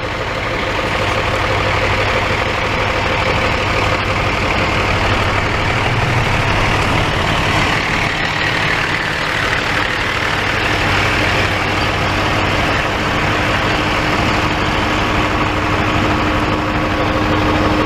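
A vehicle engine idling steadily, with a low, even hum throughout.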